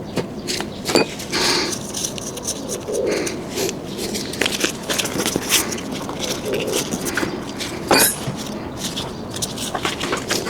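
Irregular clicks, knocks and scraping from hand work on an electric scooter's wheel and tire, with a sharper knock about eight seconds in.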